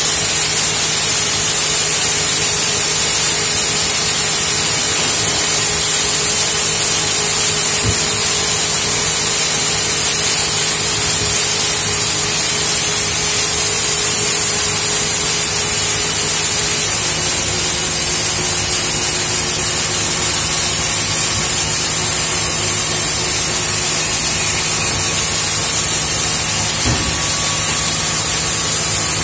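Steady hiss and crackle of the welding arc from a CRC-Evans P625 automatic pipeline welding head running a girth weld on steel pipe, with a steady hum underneath.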